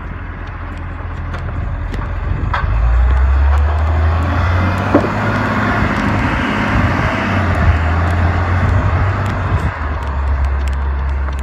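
Diesel garbage truck driving close by: a low engine rumble that grows louder about three seconds in and stays strong.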